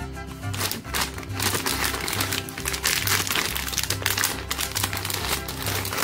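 Clear plastic packaging crinkling as it is handled and turned over, over background music with a steady pulsing bass.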